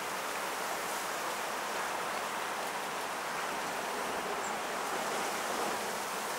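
Steady outdoor background noise: an even hiss at a constant level, with no distinct events.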